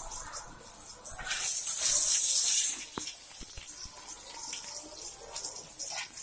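Garlic and onion sizzling in hot oil in a frying pan, stirred with a metal spoon, with a sharp click of the spoon about three seconds in. About a second in, a much louder rushing hiss starts and cuts off suddenly after about a second and a half.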